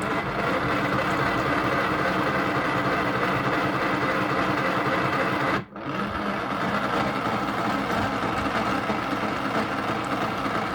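Small electric motor of a toy washing machine running steadily, turning its drum with a little water in it during a wash cycle. The sound stops for an instant about halfway through, then carries on.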